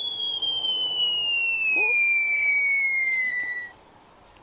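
A falling whistle sound effect: one high whistling note slides slowly and steadily down in pitch for about four seconds, then cuts off suddenly.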